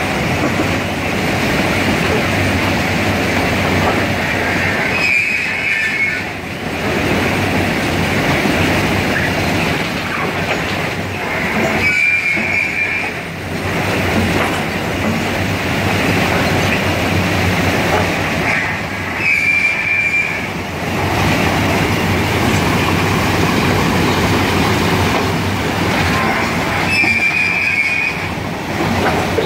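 SUZ 500 track-renewal train working along the track, a steady loud clatter and rumble of its machinery and wheels. A short high squeal comes roughly every seven seconds, five times in all.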